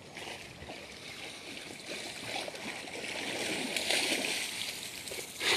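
A dog swimming in a pond: water sloshing and gurgling, growing louder as it reaches the bank and climbs out of the water, with a brief louder rush of noise just before the end.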